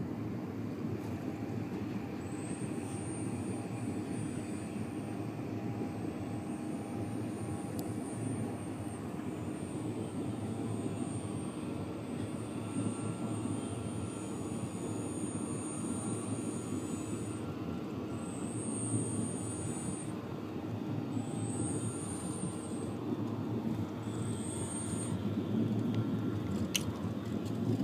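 High-pitched whine of an E-flite Carbon Cub RC floatplane's electric motor, coming in a run of throttle bursts of a few seconds each as it taxis on the water, with the pitch bending at the ends of bursts; the bursts stop about 25 seconds in. A steady low rumble of wind and water runs underneath, and there is a sharp click near the end.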